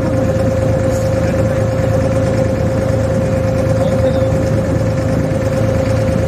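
Abra water taxi's inboard diesel engine running steadily under way: an even drone with one constant whine on top.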